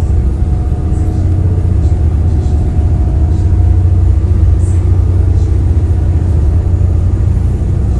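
Passenger boat's engine running steadily, a loud deep drone with a faint higher hum over it, heard from on board.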